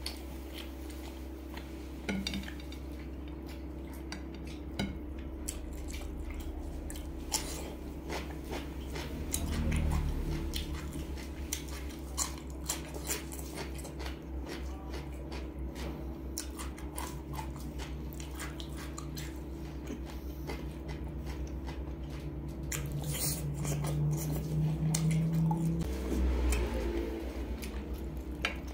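Wooden chopsticks clicking and tapping against a ceramic plate and a plastic sauce cup, with chewing of grilled pork sausage, over a steady low hum.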